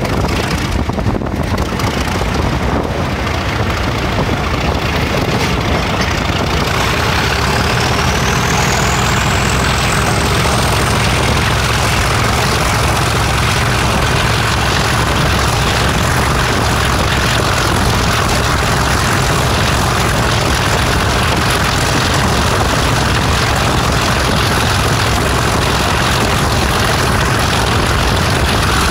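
Class 37 diesel locomotive's English Electric V12 engine working hard under power, with a steady deep rumble. Its turbocharger whistle rises in pitch over a few seconds about seven seconds in, then holds as a steady high whistle.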